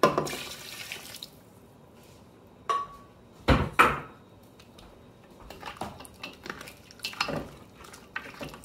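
Thick red chile sauce pours from a glass blender jar into a steel pot of fried pork rib pieces, splashing for about the first second. A ringing tap and then a few sharp knocks on the pot come around three to four seconds in, the loudest sounds. Lighter clicks and scrapes follow as a plastic spatula stirs the meat and sauce against the pot.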